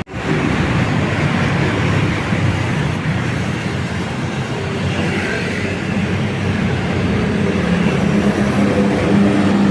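Bus engine running steadily, growing a little louder in the second half.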